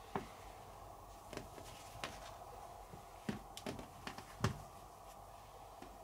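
Handling noises as felt sound-absorbing pads from an air-conditioner compressor are moved and laid on a wooden floor: a scattering of soft taps and light rustles, the firmest a little past the middle, over a faint steady hum.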